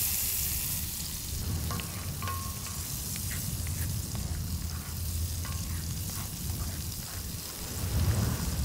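Grouper fillets sizzling in hot oil in a cast-iron skillet, with a few light clicks and scrapes as a spoon moves the fish in the pan.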